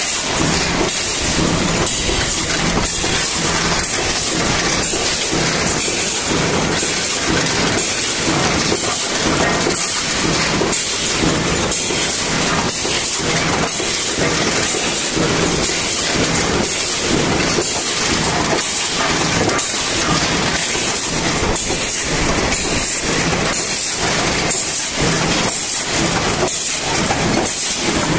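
Tin-can production machinery running: a steady, rapid, even clatter of mechanical strokes over a continuous hiss.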